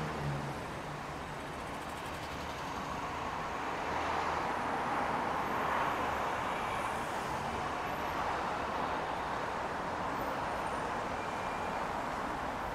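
Road traffic: a steady hiss of cars on the street, swelling as a vehicle passes about five seconds in.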